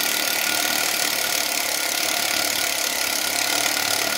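DeWalt Atomic cordless drill running steadily at constant speed, its bit boring into a pressure-treated 6x6 timber to cut a counterbore for a bolt head.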